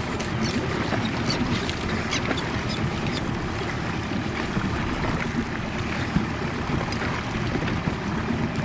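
Wind on the microphone and sea water lapping against a small boat's hull: a steady rushing noise with scattered light ticks.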